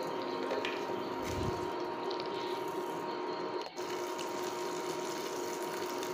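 Tempering spices sizzling in hot coconut oil in a pan on an induction cooktop: mustard seeds, then dried red chillies and curry leaves. A steady sizzling hiss over the cooktop's steady whine, dropping out briefly just past the middle.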